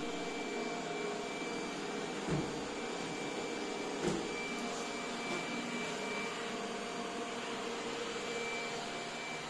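iRobot Roomba j7+ robot vacuum running with a steady whir and a thin high tone, with two short knocks about two and four seconds in.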